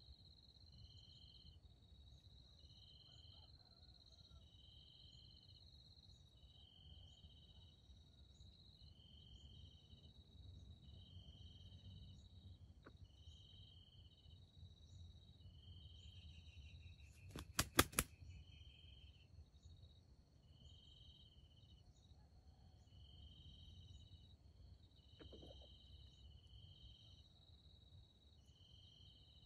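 Faint insects chirping steadily: a continuous high whine with short pulsed chirps repeating every second or two. A quick burst of a few sharp clicks cuts in about halfway through.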